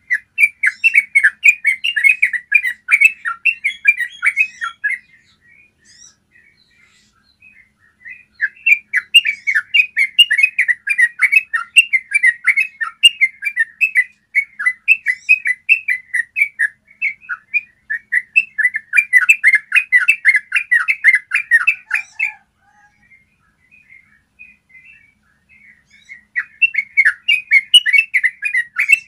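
Yellow-vented bulbul singing long, rapid runs of short notes, the rolling 'ropel' song, in three long phrases with pauses of a few seconds between them.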